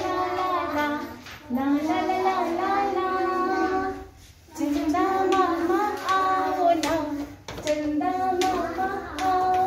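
A children's song sung in high voices, in phrases of about two seconds with short breaks between them, with a few hand claps in the second half.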